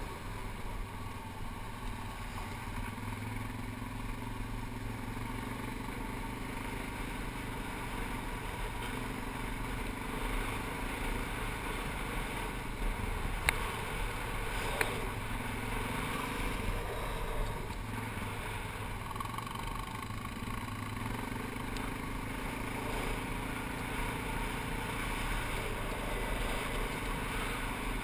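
ATV engine running steadily while riding a gravel trail, its pitch shifting slightly with speed. Two sharp clicks about halfway through.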